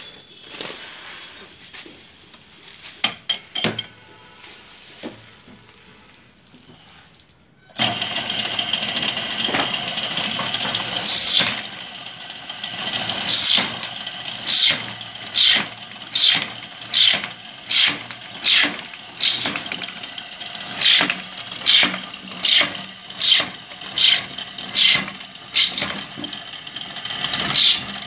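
Drilling machine starts running about eight seconds in, then drills a row of holes into PVC pipe, each cut a sharp high-pitched burst over the motor, a little more than one a second. A few clicks come before the motor starts.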